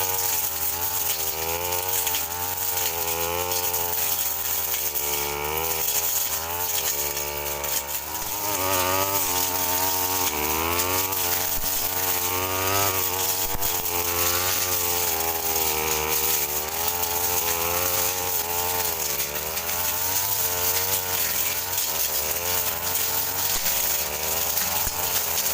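A brush cutter's small petrol engine running at high speed while cutting bush and cogon grass. Its pitch keeps wavering up and down with the load, and it dips briefly about eight seconds in.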